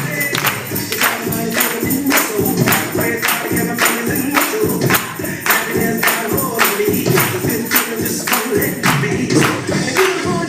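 Music with singing voices over a sharp, steady beat of hits about twice a second.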